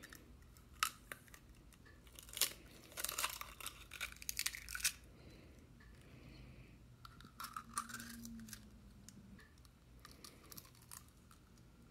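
Raw eggs cracked one after another and their shells pulled apart by hand over a bowl: faint sharp cracks and short bouts of crackling shell.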